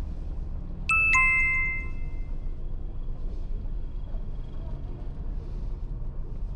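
A two-note electronic chime, a higher tone then a lower one a moment later, each ringing out for about a second, over the steady low hum of a ferry's engines.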